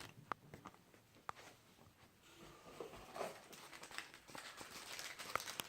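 Faint handling of packaging as a box is unpacked: a few light taps and clicks with soft rustling in between.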